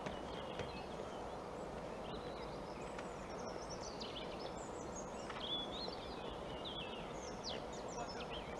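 Songbirds chirping and trilling in quick, high calls over a steady, faint low rumble of outdoor background noise.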